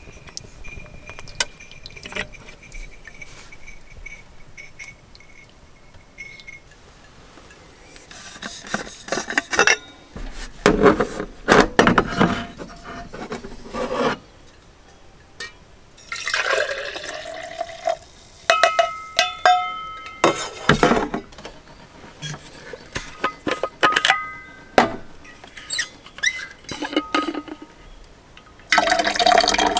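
Liquid poured in several short bursts between stainless steel camp cups, with clinks and knocks of steel cups, lids and bottles, some left ringing. About a second before the end a louder, steady pour begins from a steel vacuum bottle.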